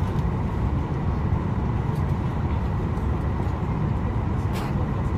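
Steady cabin noise inside a Boeing 737 MAX 8: a low rumble with a faint steady whine over it. There is a short click about four and a half seconds in.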